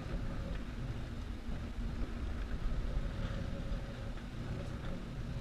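Dive boat's engine idling at the dock, a steady low rumble.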